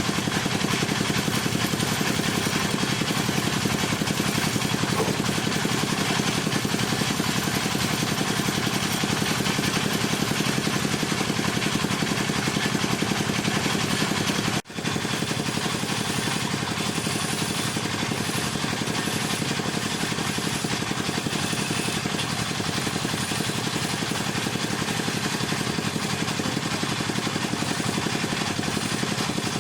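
Wood lathe running steadily with a tool working the spinning wood, a dense rapid chatter over the motor's hum; it breaks off for an instant about halfway through.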